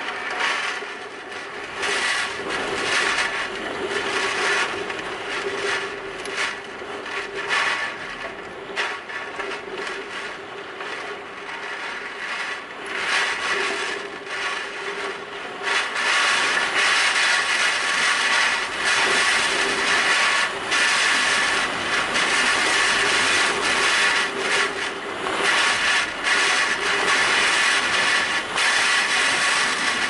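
Typhoon winds and driving rain gusting, with a steady low whistle running under the rushing noise. The gusts grow louder about halfway through and stay strong.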